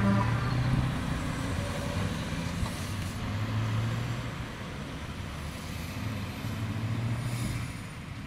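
Road traffic: a car passes close, then a tanker truck and other cars drive by, engines running and tyres on the road, loudest near the start.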